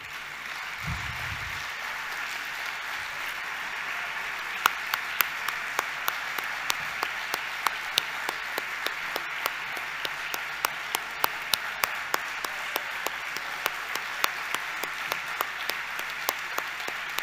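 Audience applauding in a hall. About four seconds in, sharp claps fall into a steady beat of about two to three a second over the general clapping.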